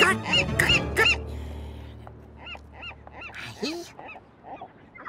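Seagull squawking in a quick run of short, arching calls, about three a second, then a few fainter scattered calls later on.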